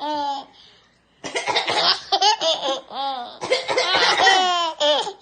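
Two-year-old boy laughing hysterically in repeated bursts, mixed with an adult's fake coughs that set him off. The laughing breaks off for under a second near the start, then runs on almost without pause.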